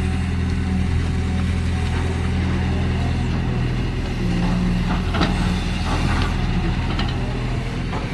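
Cat excavator's diesel engine running steadily, with a few sharp metallic knocks about five seconds in and again near seven seconds.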